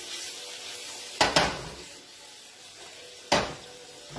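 Ravioli sizzling in a frying pan with butter, pancetta and a splash of pasta water, with sharp knocks from the pan: two close together a little over a second in and one more past three seconds.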